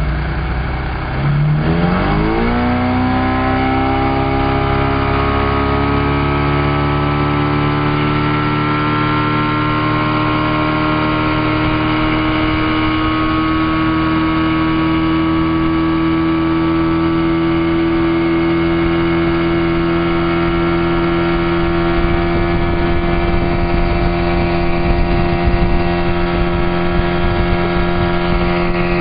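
Motorboat engine throttling up sharply about a second in, then running at high speed with its pitch creeping slowly higher.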